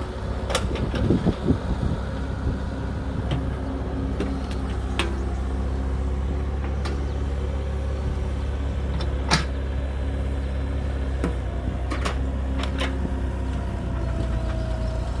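Diesel engine of a mini excavator running steadily under work, with sharp metallic knocks now and then as it digs and moves soil.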